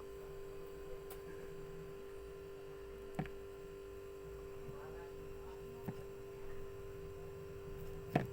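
Steady electrical hum, with three light taps spread through it as lime seeds are picked out with a spoon in a small container.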